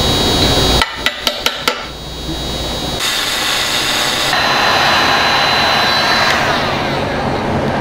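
Workshop tool sounds in quick cuts: a steady machine whirr, then four sharp clicks or taps, then a heat gun blowing steadily with a thin high whine that stops about six seconds in.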